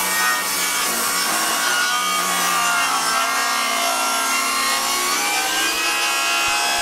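Cordless table saw running and ripping a narrow strip of timber lengthwise. The motor's whine drops in pitch under load through the middle of the cut and climbs back near the end.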